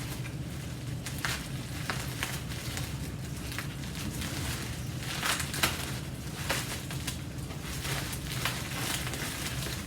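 Packing material rustling and crackling as a wrapped item is pulled open by hand, with scattered sharp crackles over a steady low hum.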